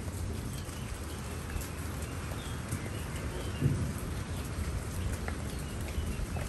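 Steady rain falling, with scattered individual drops ticking, a low rumble underneath and a single low thump a little past halfway.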